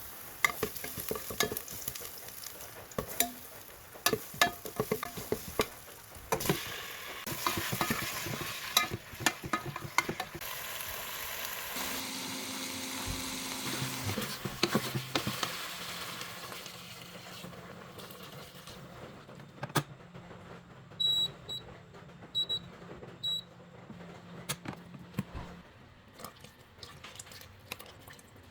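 Food sizzling in hot oil in a rice cooker pot while a utensil stirs it, with repeated clinks and scrapes; the sizzle eases off in the second half. A few short high tones sound briefly in the second half.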